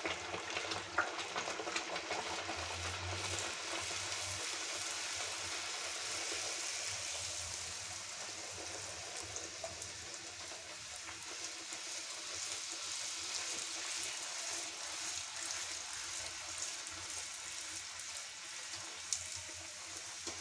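Poori deep-frying in hot oil in a steel kadai: a steady sizzle and bubble of oil around the dough.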